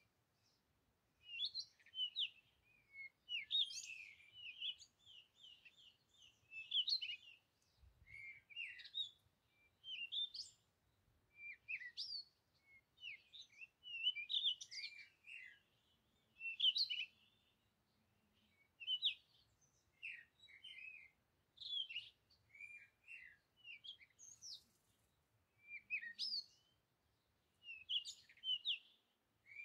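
Small birds chirping: clusters of short, high, gliding notes repeating every second or two, with brief quiet gaps between them.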